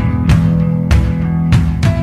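Background music: guitar playing over a steady beat.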